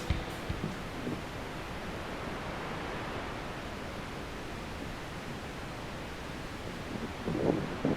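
Strong wind blowing: a steady rushing noise with low rumble, swelling briefly near the end.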